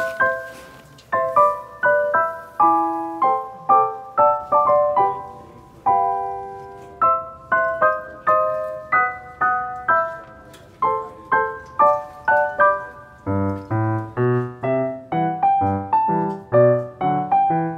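Background piano music: a light tune of single struck notes that fade quickly, with lower bass notes joining about two-thirds of the way through.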